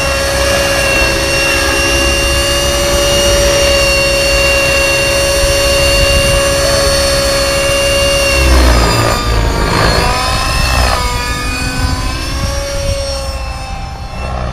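Radio-controlled model helicopter hovering, a steady high whine from its motor and rotor blades. About nine seconds in the pitch drops and wavers, then rises back and settles, slightly quieter, as the rotor speed changes.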